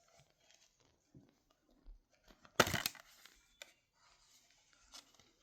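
Steelbook disc case being opened by hand: faint handling noise, one sharp click about two and a half seconds in, and a few smaller clicks after it.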